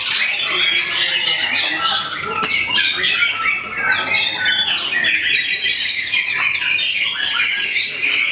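Many caged songbirds singing over each other in a dense, continuous mix of rapid short notes, trills and whistles. This is the massed song of competition birds hanging side by side during a judging round.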